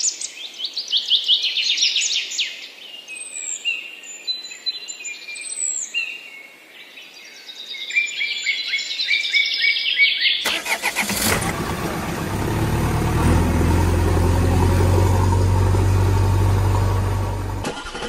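Birds chirping and singing for the first ten seconds; then an engine starts up abruptly and runs steadily with a low hum, drowning out the birds.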